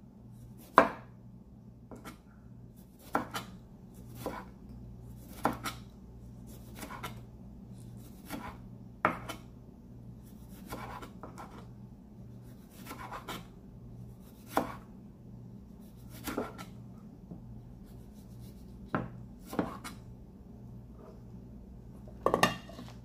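Chef's knife slicing a tomato into rounds on a cutting board: a sharp knock each time the blade reaches the board, spaced about one to two seconds apart, with a quick run of several strokes near the end.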